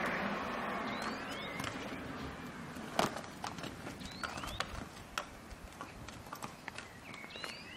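Hooves of a saddled horse clip-clopping at a walk as it is ridden off, uneven knocks with one sharp louder strike about three seconds in. Birds give short rising chirps a few times.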